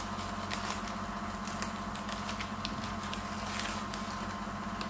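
Masking tape being peeled off freshly painted car bodywork, a faint, irregular crackle and ticking over a steady low hum.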